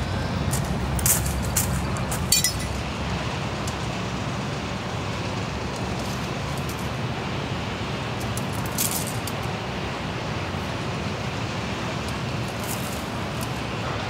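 Steady road-vehicle rumble with a few light metallic clinks and jingles, a cluster about a second or two in and a couple more later.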